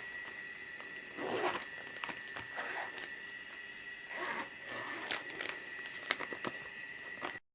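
Packaging being handled and opened: several short bursts of rustling and crinkling with a few sharp clicks, over a steady high-pitched whine.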